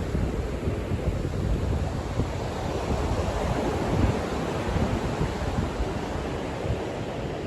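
Ocean surf washing onto a beach, a continuous rushing that swells slightly about halfway through, with wind buffeting the microphone as a low rumble.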